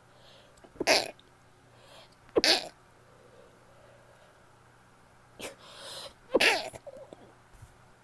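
A woman sneezing three times: once about a second in, again about a second and a half later, and a third time near the end after a longer intake of breath.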